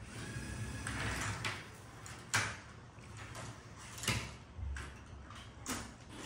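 LEGO competition robot running: a faint motor whine, then three sharp clacks of plastic parts knocking about a second and a half apart.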